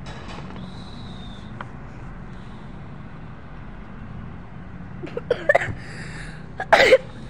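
Over-ear gaming headset being put on and adjusted, over a steady low hum: a few short clicks and rustling bursts about five seconds in, then one louder, sharp noisy burst near the end.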